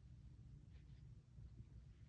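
Near silence: faint low room rumble.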